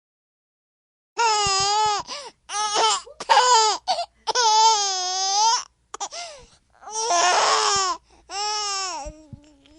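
A baby squealing: a run of about seven long, high vocal sounds with wavering pitch, starting a little over a second in after silence.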